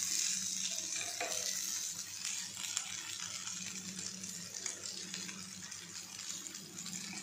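Egg noodles sizzling in a non-stick frying pan on the stove: a steady hiss.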